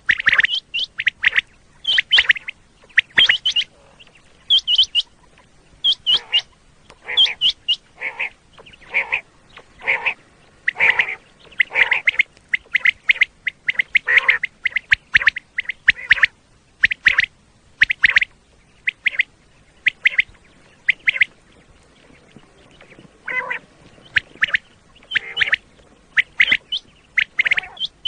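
Common quail calling: short sharp notes in quick groups, repeated roughly once a second.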